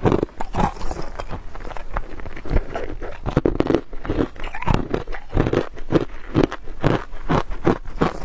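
Freezer frost crunching between a person's teeth as she chews a mouthful, a close, quick run of crisp crunches several a second.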